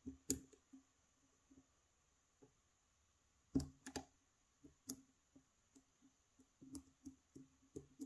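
Faint, scattered clicks of a lock pick working the pins of a pin-tumbler challenge lock under tension, with a couple of louder clicks about three and a half seconds in and a run of small ticks near the end.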